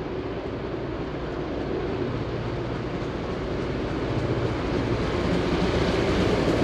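Victorian Railways R class 4-6-4 steam locomotive R761 approaching, its running noise growing steadily louder as it nears.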